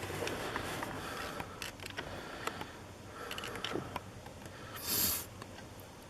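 Faint handling sounds: scattered small clicks and taps, with a brief scrape about five seconds in.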